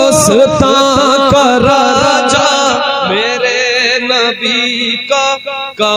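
Devotional naat singing: a solo voice sings the word 'Hindustan' and holds it over a layered humming vocal backing with heavy reverb. A deep booming beat, about four strokes a second, runs underneath and stops about three seconds in, leaving the held voices.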